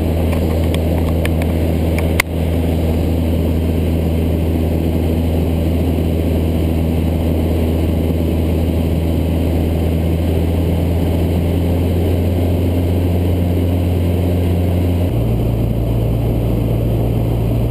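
Single-engine Cessna's piston engine and propeller droning steadily in the cockpit, heard from inside the cabin. A sharp click sounds about two seconds in, and late on the drone's tone changes abruptly.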